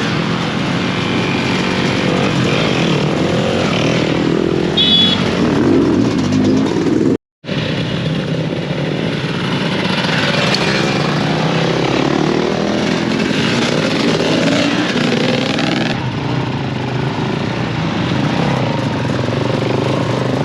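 Enduro dirt bike engines running and revving, their pitch rising and falling. The sound drops out for a moment about seven seconds in.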